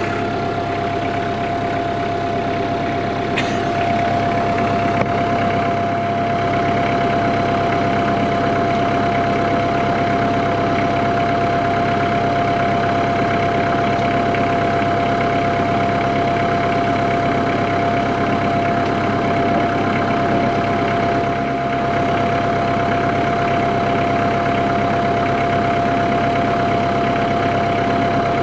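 Kubota L3940 tractor's diesel engine running steadily at low revs, with a constant high whine over the engine note.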